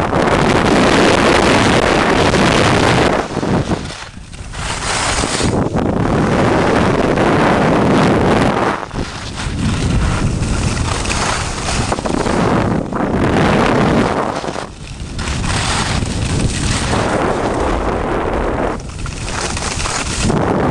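Wind rushing over the microphone of a camera carried by a downhill skier at speed, mixed with the scrape of skis on packed snow. The rush dips briefly several times and swells again.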